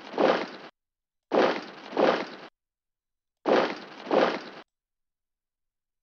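Computer board game's sound effect for moving a unit: a short noisy rush in two swells, about a second long. It is heard three times, about two seconds apart, once for each block moved across the board.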